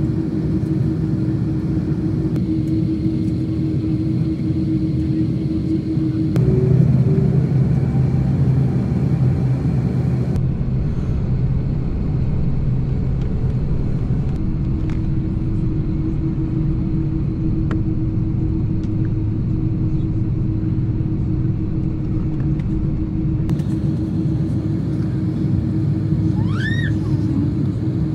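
Steady low engine rumble with a constant hum through it. It swells for a few seconds about a quarter of the way in, and near the end comes one short squeal that rises and falls.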